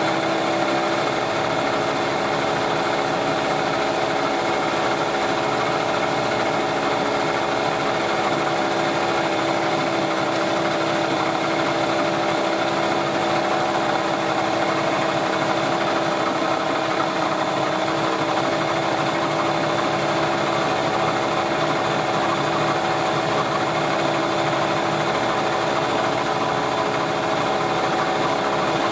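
Small Yamaha two-stroke outboard motor, run on 100:1 premix, idling steadily at an even pitch with no revving.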